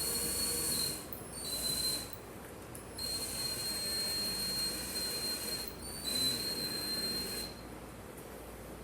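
A small electric power tool running in short bursts: a steady high-pitched whine with a hiss over it, started and stopped about three times, each run lasting one to three seconds.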